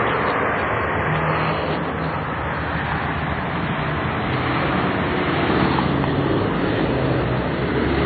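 Steady city street noise: traffic running by, with a low engine hum.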